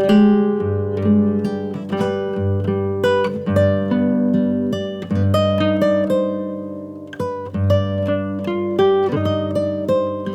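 Background music: acoustic guitar picking a melody over bass notes, each note plucked and ringing out.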